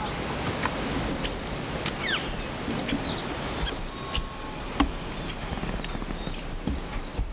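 Steady hiss of light rain in the woods, with scattered ticks of drips and a few short, high bird chirps.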